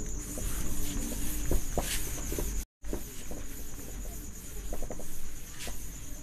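A cloth wiping marker writing off a whiteboard: a run of rubbing strokes across the board's surface.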